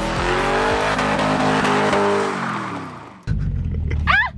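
A vehicle engine working hard, its pitch rising a little and then falling as the sound fades out about three seconds in. It then switches abruptly to a low, steady engine rumble, with a brief voice near the end.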